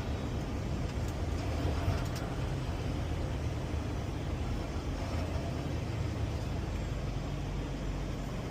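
Semi-truck driving on the highway: steady engine and road noise.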